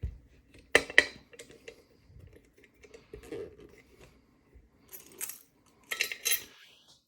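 Metal clinks and rattles of a padlock and lock picks being handled, with sharp clicks about a second in and a cluster of louder clinks near the end.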